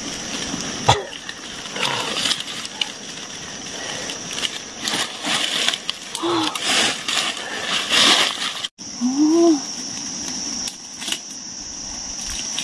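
Dry leaves and a plastic net rustling and crackling as a rooster caught in a net trap is handled. The bird gives a couple of short calls, one about six seconds in and one about nine seconds in.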